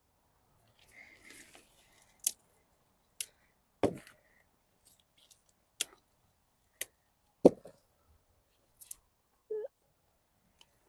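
Brussels sprouts being snapped off a tightly packed stalk: a string of about seven sharp snaps, irregularly spaced.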